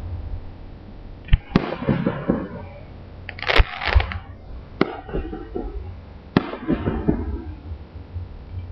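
Aerial firework shells bursting: several sharp bangs spread through the stretch, each trailing off in echo.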